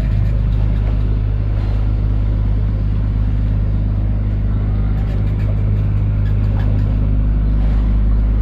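An engine running steadily with an even, unchanging low drone.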